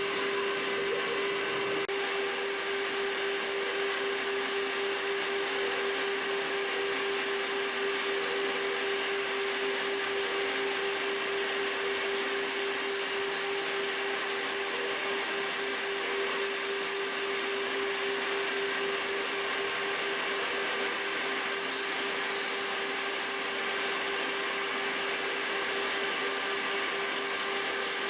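Spindle of a home-built CNC gantry milling machine running at steady speed: a constant high whine over a dense, even machine noise, unbroken throughout.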